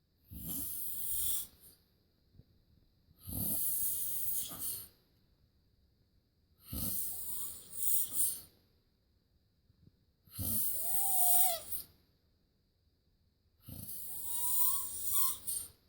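Loud snoring: five rasping snores about every three and a half seconds, each lasting a second or two, the last two with a short whistling squeak that rises and falls.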